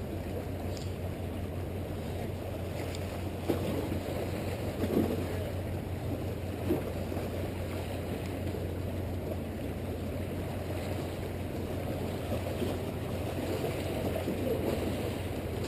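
Steady wind rumble on the microphone over seawater washing against the rocks of a jetty, with three brief louder moments in the first half.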